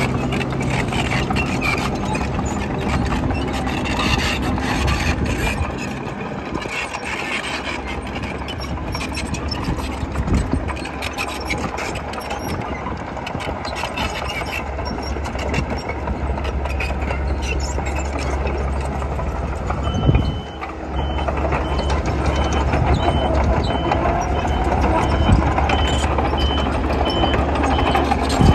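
Engine of a tracked earthmoving machine running steadily as it pushes and levels soil. From about two-thirds of the way in, a reversing alarm beeps at a regular pace over the engine.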